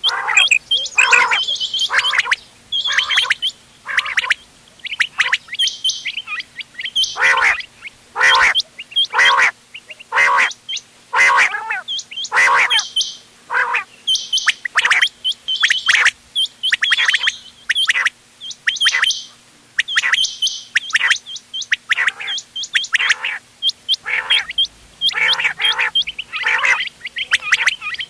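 Several quail calling over one another, short sharp calls repeating about once a second or faster without a break. A faint steady low hum lies underneath.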